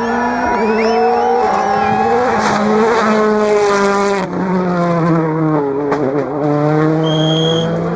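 Hyundai i20 WRC rally car's turbocharged four-cylinder engine running hard at speed, its pitch falling gradually as it passes. Spectator cheers and whistles are heard near the start, and a short high whistle-like tone comes near the end.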